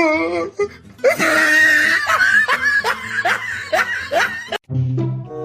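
A person laughing hard in a quick run of breathy, rising bursts, cut off suddenly near the end as music starts.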